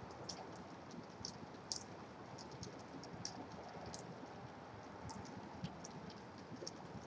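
Steady hiss of rain with distant highway traffic, over which come irregular light ticks, a few a second.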